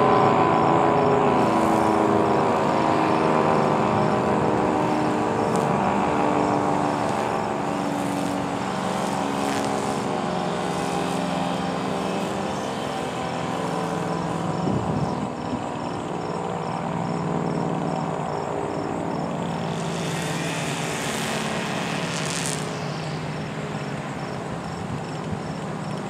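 ACA Cyclone 125 tornado warning siren winding down at the end of its one-minute alert: its tone falls and fades slowly, swelling and dipping in a regular pulse. A brief rushing noise about twenty seconds in.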